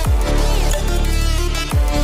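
Electronic dance music with a heavy bass line, its bass notes dropping sharply in pitch again and again.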